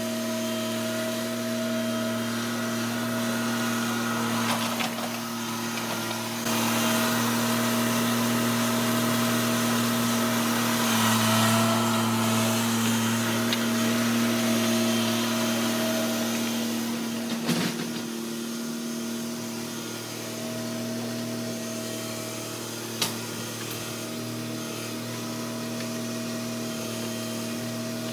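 Engine of a 1997 Ford New Holland LX865 skid steer loader running steadily, getting louder for about ten seconds in the middle as it works, with a couple of sharp knocks in the second half.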